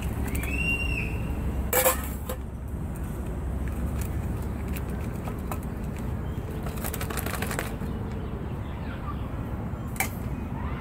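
Foil ration pouch crinkling and rustling as it is handled and pushed down into a steel canteen cup, with a sharp crackle about two seconds in and another stretch of rustling later, over a steady low outdoor rumble.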